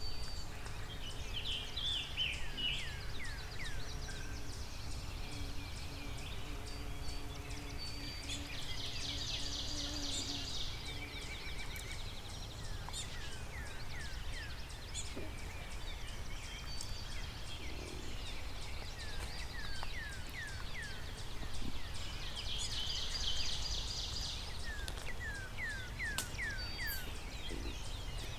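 Songbirds singing in a quiet field: series of short down-slurred whistled notes repeat throughout, with a buzzy high trill twice, over a steady low outdoor rumble.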